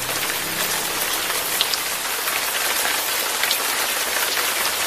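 Steady rain falling, a dense even hiss with occasional sharper individual drops. The last faint low notes of the jazz ballad die away in the first two seconds.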